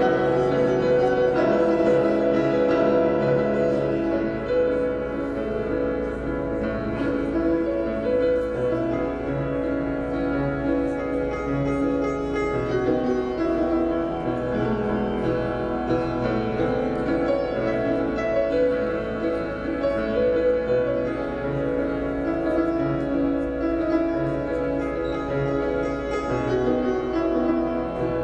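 Upright piano played solo: a low bass note struck in a steady pulse under held chords and a melody line.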